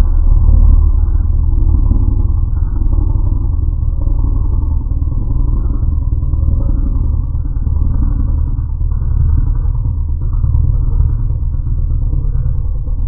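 Designed T. rex sound effect built from crocodile and cassowary calls: one long, deep rumbling growl, loudest in its first second.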